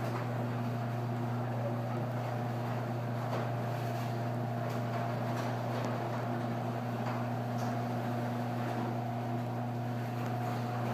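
LiftMaster 1345 garage door opener motor running steadily as it lowers a lightweight metal sectional door along its one-piece T-rail: an even, unbroken motor hum with a low drone and a fainter higher tone above it.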